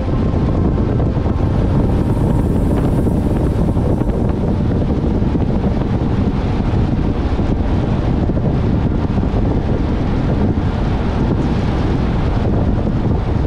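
Steady wind buffeting the GoPro's microphone while the car drives along a sealed road, over a low, steady rumble of tyres and engine.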